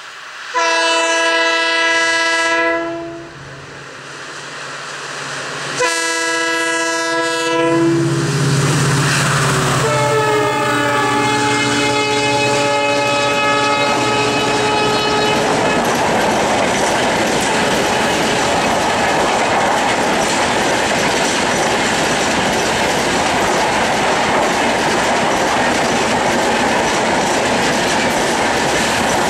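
A WDP4D diesel locomotive sounds its air horn in two long blasts as it approaches. A third blast comes about eight seconds in, falling slightly in pitch as the locomotive passes, over the deep rumble of its engine. The coaches then roll steadily past, their wheels clickety-clacking over the rail joints.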